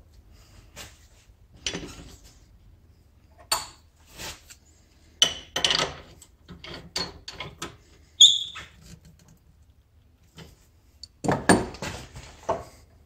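Irregular metal clinks and knocks from remounting a turned pepper-grinder blank in a wood lathe chuck, with one short ringing clink about eight seconds in and a cluster of knocks near the end.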